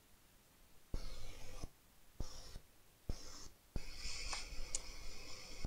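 Faint scratching and rubbing of small-parts handling on a phone repair bench. It comes in short stretches that start with a click and stop abruptly several times.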